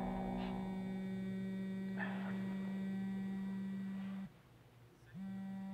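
Mobile phone vibrating with a steady buzz, stopping for under a second about four seconds in, then buzzing again: an incoming call.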